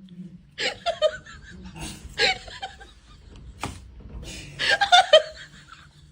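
People laughing in several short bursts, with a sharp click about three and a half seconds in.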